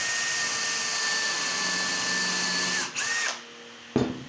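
Makita cordless drill spinning a countersink bit into the drawer's corner joint, a steady high motor whine. It winds down nearly 3 s in, runs again in a short burst, then stops; a single sharp knock comes near the end.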